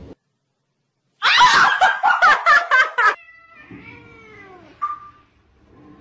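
Two tabby cats squaring off and yowling: a loud burst of rapid, pulsing cries about a second in, then a drawn-out yowl falling in pitch, and a quieter low yowl near the end.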